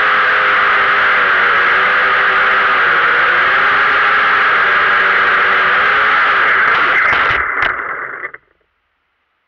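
Small FPV quadcopter's ZTW Black Widow brushless motors and propellers running, heard from the camera on board, several motor pitches wavering as the throttle changes. About seven and a half seconds in come a few knocks, and within a second the motors wind down and stop: the quad has hit something and come down.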